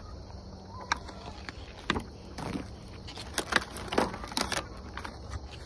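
A flock of backyard chickens foraging on scattered strawberries in the dirt: irregular soft pecks and scuffs, over a steady low hum.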